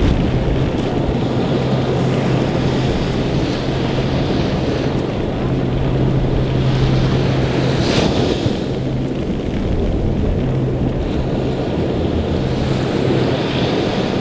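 Wind buffeting the microphone over small waves washing onto a sandy beach, with a steady low hum that comes and goes several times and a brief crackle about eight seconds in.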